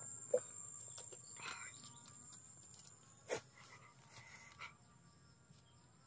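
Quiet outdoor ambience: a steady high-pitched insect whine with faint distant animal or bird calls, broken by a few sharp clicks, one about a third of a second in and a louder one just past three seconds.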